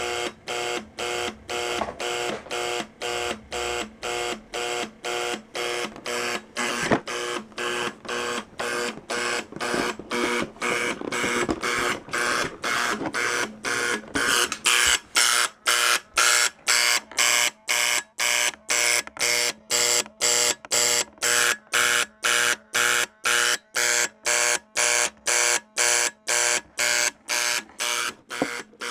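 Fire alarm sounding in a fast pulsing pattern, about two buzzy beeps a second, starting abruptly and getting a little louder and brighter about halfway through. A single sharp click about seven seconds in.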